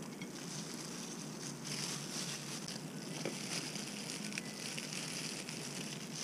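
Thin plastic food-prep gloves rustling and crinkling as hands handle and plate the food, quiet, with a few faint ticks of food and leaves being moved.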